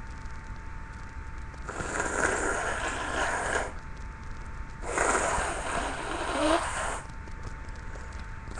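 A person blowing their nose hard, twice, each blow lasting about two seconds, the second with a wavering nasal honk near its end.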